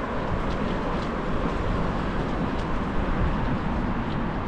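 Steady rumble of wind buffeting the microphone, with road noise, while riding a bicycle; a few faint clicks come through.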